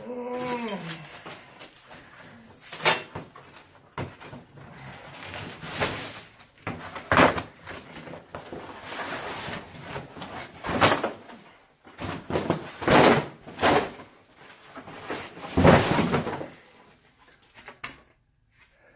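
A new mirror being handled and uncovered from its packaging: irregular bursts of scraping and rustling, cardboard and wrapping, with a short falling whine right at the start.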